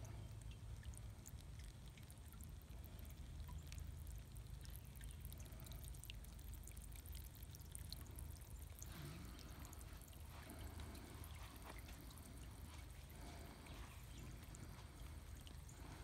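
Small garden fountain's water trickling and splashing onto pebbles, faint over a steady low rumble. The splashing grows a little stronger from about halfway through.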